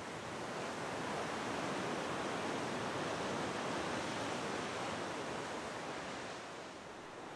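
Sea surf: a steady rush of waves on a rocky shore, easing off slightly near the end.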